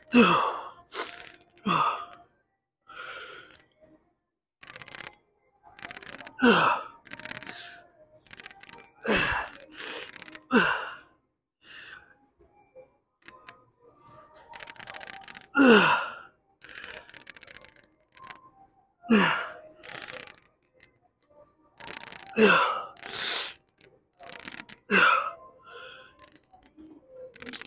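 A man's forceful breathing through a set of dumbbell rear delt flies: a loud exhaled grunt that drops in pitch with each hard rep, every two to three seconds, with quicker breaths in between.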